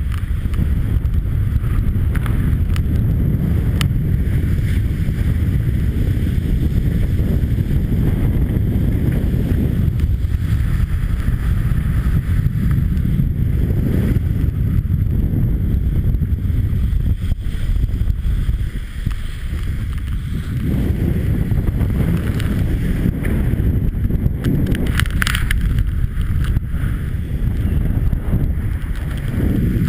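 Wind buffeting the camera microphone over the rush of water past the hull of a Class 40 racing sailboat under sail.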